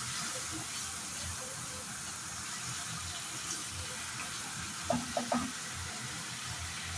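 Onion, spices and prawns sizzling steadily in oil in a pan. A quick run of three metallic clinks comes about five seconds in, a utensil knocking on the pan.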